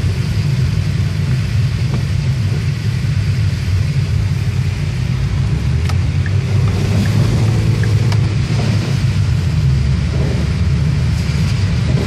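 Car driving over a wet, slushy road, heard from inside the cabin: a steady low engine and road rumble with a hiss of tyres through the slush.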